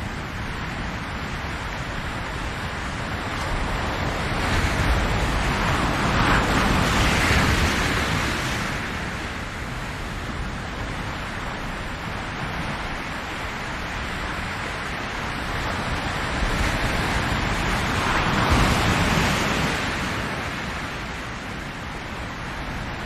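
Ocean surf. Two waves swell up and fall away, about twelve seconds apart, over a steady wash of water noise.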